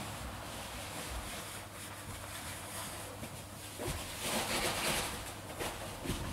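Large latex balloon squeezed in a hug and rubbed against a furry costume: a soft scraping and rubbing of fur on rubber, louder from about four seconds in, with no pop.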